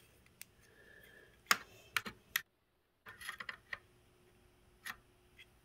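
Digital calipers being handled and set against a brad nailer's metal nose piece: a handful of scattered light clicks and taps, the loudest about a second and a half in.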